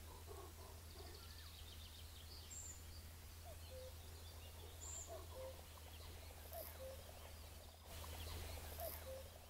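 Common cuckoo calling, its faint two-note cu-coo, the second note lower, repeated about four times roughly every one and a half seconds, with thin high chirps of other small birds.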